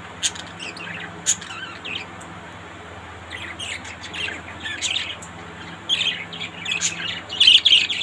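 Budgerigars chirping and twittering: scattered short chirps that grow louder and busier near the end.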